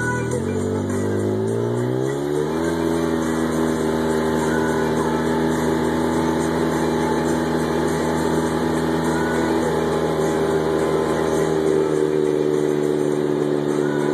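Polaris RZR side-by-side's engine speeding up as the vehicle accelerates, its pitch rising over the first two or three seconds, then running steadily at cruising speed on a dirt trail.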